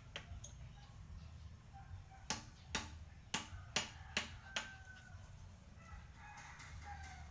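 A quick run of about six sharp clicks, roughly two a second, starting about two seconds in and ending by the middle, with faint high calls afterwards.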